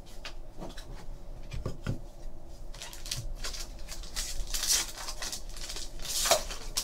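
Foil trading-card pack crinkling as it is handled and opened by hand, with cards sliding against each other; irregular rustles, loudest about two-thirds of the way through and again near the end.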